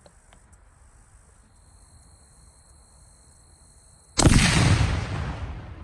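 A single sudden, loud blast about four seconds in: a 1.5-pound charge of Tannerite exploding inside a pumpkin. It dies away in a rumbling tail over about a second and a half.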